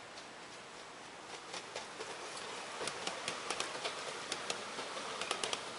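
A 7¼-inch gauge miniature train approaching and passing close by, its wheels rolling and clicking sharply over the rail joints. The rolling grows louder from about a second and a half in, with irregular clicks several times a second as the carriages go by.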